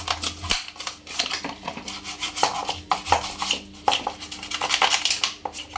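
Washing machine parts being scrubbed and handled: rapid, irregular rubbing, scraping and clattering of hard objects, over a faint steady hum.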